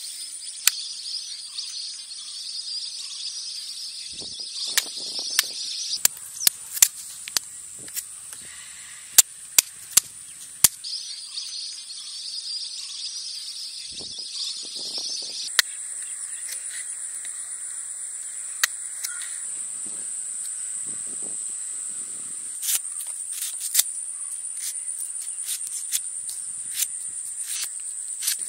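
Steady high-pitched insect chorus, with a second, lower insect drone that comes and goes. Over it are sharp clicks and knocks of a large knife cutting into and peeling palmyra palm fruit, most of them in a quick cluster between about four and eleven seconds in.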